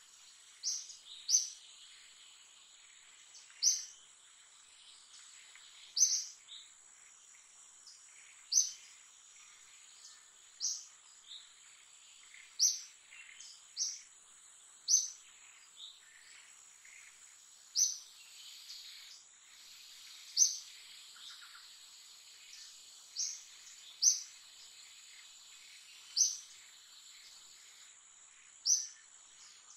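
A bird repeating a short, high chirp every one to three seconds, over a steady high-pitched insect drone.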